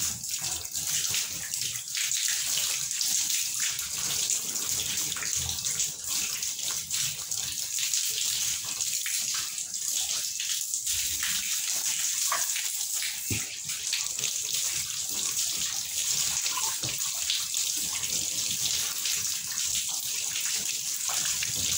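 Water running from a garden hose and splashing as the strainer and filter bag of a soy milk grinding machine are rinsed clean by hand, with a few light knocks of the parts.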